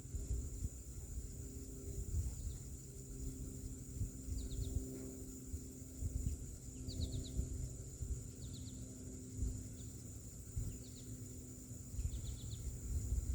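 A Mainstays hugger ceiling fan running with a steady hum, under gusty wind rumble on the microphone. Short bird chirps come several times in quick little groups.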